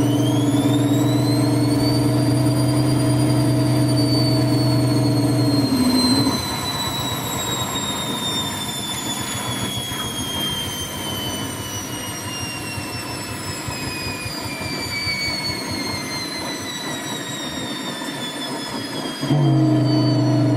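Washing machine in its spin cycle: a high motor-and-drum whine rises over the first couple of seconds, then slowly falls as the drum winds down. A steady low motor hum under it cuts out about six seconds in and comes back near the end.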